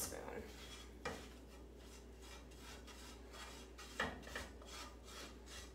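Spatula scraping and stirring a flour-and-oil roux around a frying pan in repeated strokes, with sharper knocks against the pan about one and four seconds in.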